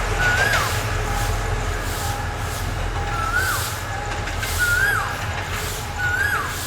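Steady low rumble of an idling train engine. Over it, a short whistled chirp rises and then falls, repeating about every second and a half.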